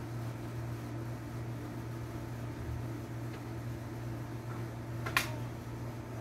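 A steady low mechanical hum, with one sharp knock about five seconds in.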